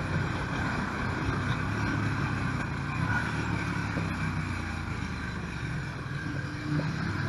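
KTM 1290 Super Duke R's V-twin engine running at steady, moderate revs, picking up briefly near the end.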